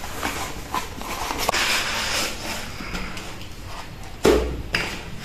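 A cardboard product box being handled and opened, scraping and rustling. About four seconds in comes a dull thump, the loudest sound.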